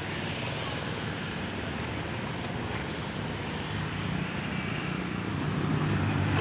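Road traffic passing along the street: a steady rush of engines and tyres. A vehicle's engine grows louder near the end as it comes close.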